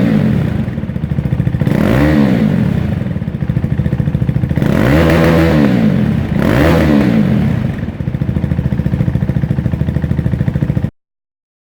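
2018 Husqvarna Vitpilen 401's single-cylinder engine idling through its exhaust and blipped four times, each rev rising and falling quickly. The sound cuts off near the end.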